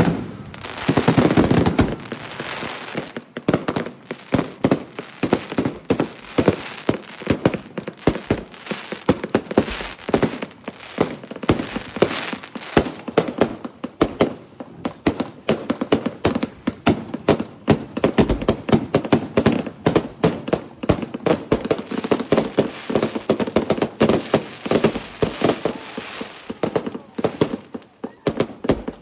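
Outcast 300s fireworks going off in a long, rapid, irregular run of sharp bangs, several a second, heaviest in the first few seconds.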